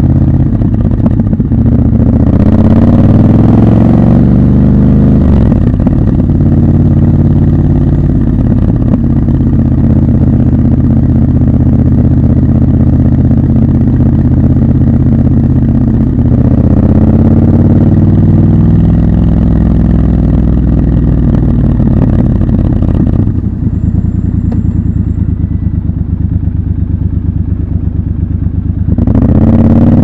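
Triumph Scrambler 1200 XC's 1200 cc parallel-twin engine under way. Revs rise as it accelerates about two seconds in and again around sixteen seconds; the throttle is closed and the engine runs softer for several seconds near the end, then picks up again.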